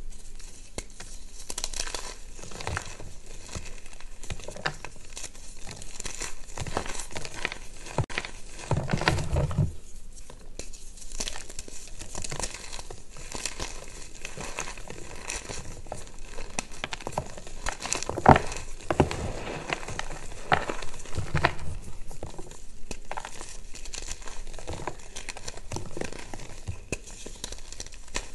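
Bare hands crushing and crumbling reformed gym chalk bars, the dry chalk crunching and crackling as it breaks into chunks and powder. There are a few louder crunches, about nine and eighteen seconds in.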